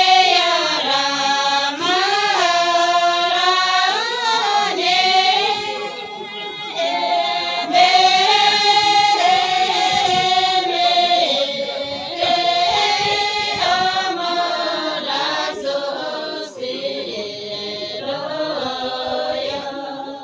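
Voices singing a slow melody with long held notes that bend up and down.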